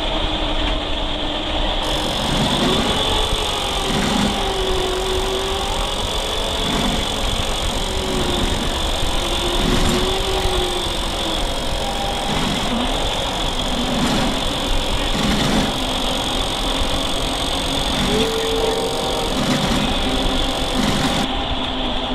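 Small RC model truck driving, a steady whine and rolling noise from its drivetrain and wheels on pavement, with people's voices now and then.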